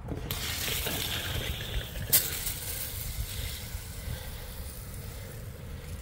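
Cold water running from an RV's outside shower, a steady spraying hiss that comes on right at the start as the line is flushed of winterizing antifreeze. A sharp click about two seconds in.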